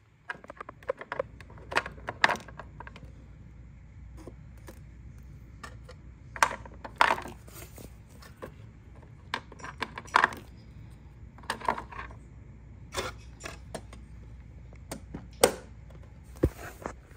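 Irregular small clicks and taps of miniature plastic toy pieces being handled, set down and slid into a Miniverse toy kitchen's compartments, over a low steady hum.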